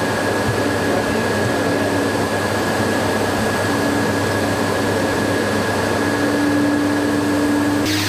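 Cleanvac RL600 commercial carpet vacuum, with twin vacuum motors and a rotating roller brush, running steadily on a rug: a loud, even rush of air with a constant high whine over a low hum. Just before the end the high whine drops out and the sound turns brighter.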